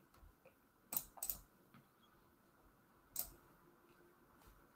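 A few sharp clicks from working a computer: two close together about a second in and a louder single click just past three seconds, with fainter ticks between.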